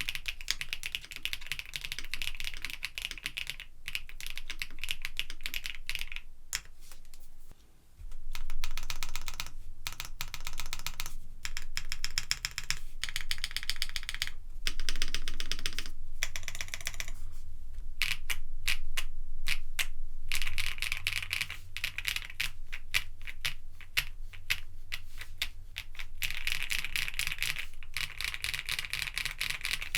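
Continuous typing on a KBDfans D60 Lite mechanical keyboard with factory-lubed HMX Pado linear switches, a polycarbonate plate and cmk keycaps: rapid keystroke clicks in steady streams, with a brief pause about eight seconds in.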